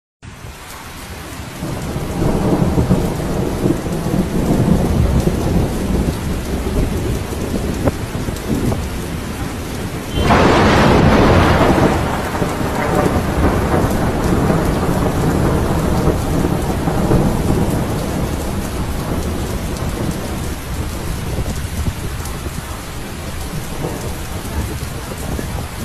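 Heavy rain pouring down with low rolling thunder that swells and fades. A louder rushing burst lasts about two seconds, some ten seconds in.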